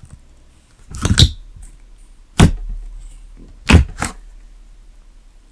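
Thick slime being pressed and poked by hand, giving a crackly cluster of pops about a second in, then three single sharp pops.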